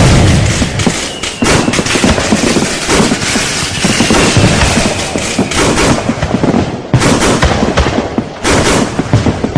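Fireworks going off in a dense, continuous barrage of overlapping bangs and crackles, with faint whistles of rising shells heard twice.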